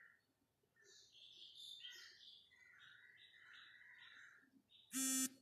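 Faint rubbing of a duster wiping a whiteboard, then a loud buzzing electronic beep near the end.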